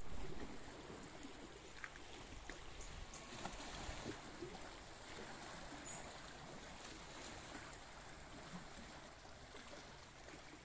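Faint, steady wash of small sea waves lapping against shoreline rocks.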